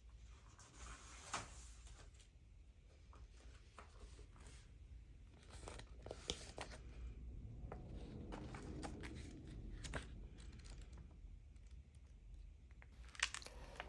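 Faint paper rustling with scattered light clicks and taps, as paper pages and cut-out pieces are handled.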